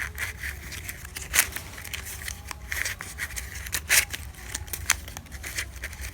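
Stiff embossed glitter ribbon rustling and crinkling in the hands as strands are threaded through and pulled, in irregular short crackles with a couple of sharper ones, over a steady low hum.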